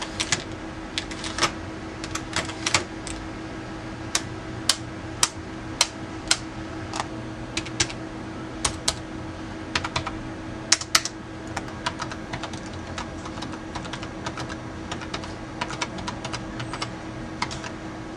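Keys of a TEC MT-1 compact keyboard clicking irregularly as someone types on it, over a faint steady hum.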